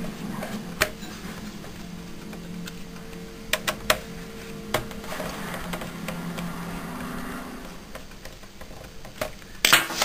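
Small sharp clicks and taps of a screwdriver on screws and a plastic laptop access panel as the bottom cover is screwed down: a few single clicks, then a louder cluster near the end.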